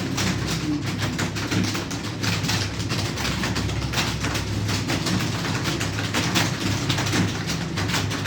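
Computer keyboard being typed on: rapid, irregular keystroke clicks over a steady low hum.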